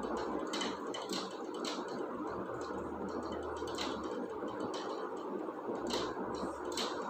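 Marker pen writing on a whiteboard: short scratchy strokes at irregular intervals, about ten of them, over faint steady room noise.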